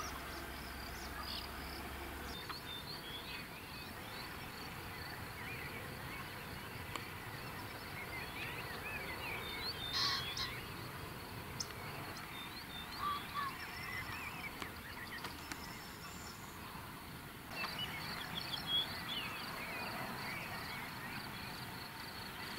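Outdoor countryside ambience: a steady hiss with several birds singing and calling in short chirps and trills. The background changes abruptly about 17 seconds in.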